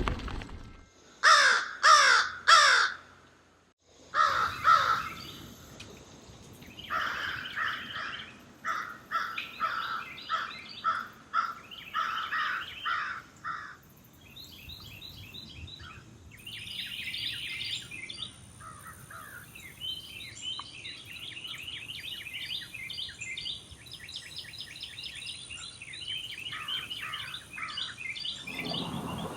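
Crow cawing three times in quick succession, followed by a long run of repeated calls and then fast chirps and trills from other birds.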